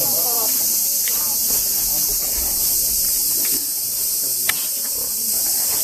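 Steady, high-pitched chorus of insects, with a single sharp click late on.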